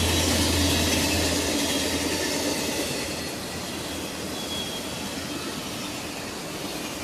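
Passenger cars of a CSX train rolling past on the rails with a steady rumble and clatter, while the low drone of the diesel locomotive that has just passed fades away in the first couple of seconds. The sound eases off about halfway through, with a few faint high wheel squeals.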